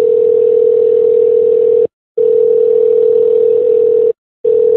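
A telephone line tone heard down the phone: one steady pitch, on for about two seconds, off briefly, then on again, repeating.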